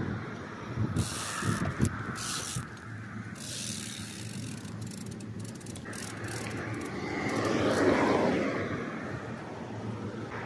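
A mountain bike rolling along a paved road, heard from a handlebar-mounted camera: steady tyre and road noise with wind on the microphone, gusting in the first few seconds. The noise swells louder for a couple of seconds about three-quarters of the way through, then eases off.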